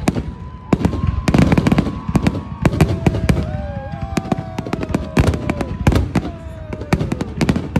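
Aerial fireworks display: a rapid run of shell bursts and crackling reports. A few long, drawn-out tones sound over the bangs through the middle, gliding down before they fade.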